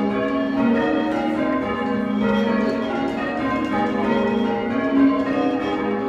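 Change ringing on a ring of six church bells cast in 1789 by Robert Dalton, struck in steady rotation so their tones overlap continuously. Together the bells have a soft, pleasant tone.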